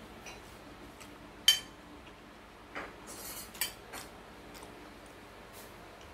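Metal spoon clinking and scraping against a plate of fried rice: one sharp ringing clink about a second and a half in, then a few lighter clicks and a short scrape.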